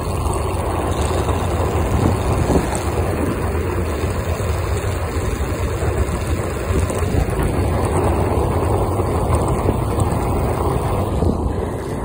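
Electric skateboard riding on rough asphalt: a steady loud rumble of the wheels rolling, with the drive motor running, a motor sound its owner calls weird.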